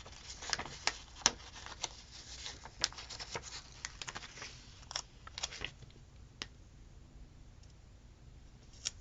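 Paper rustling and small crisp clicks and taps as a thin paper sticker is handled, peeled and pressed onto a planner page, busiest in the first six seconds and then sparser.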